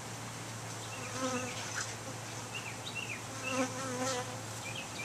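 Italian honey bees buzzing around a top-bar hive, with several short buzzes as bees fly close past the microphone from about a second in.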